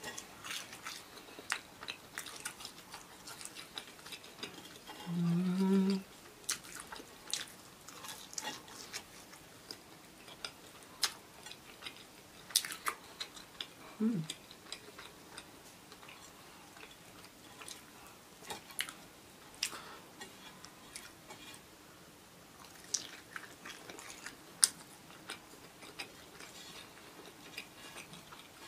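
Close-miked chewing of a crunchy breadcrumb-coated fried chicken cutlet, with scattered crisp crackles and mouth sounds. A short hummed "mm" about five seconds in, and a brief falling vocal sound near the middle.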